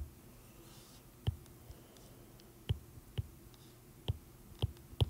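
A stylus tip tapping on a tablet's glass screen while handwriting: a handful of short, sharp clicks at uneven intervals, with faint room tone between them.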